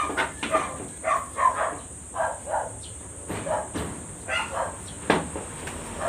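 Dog barking repeatedly, short barks in quick succession.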